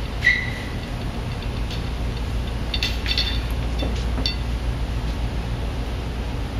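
A few light clicks and one short metallic ping from the poles of a fabric display frame being handled and seated, over a steady low hum.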